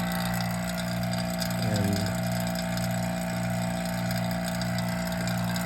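Vacuum pump running with a steady hum and a slight regular pulse. A short falling tone sounds about two seconds in.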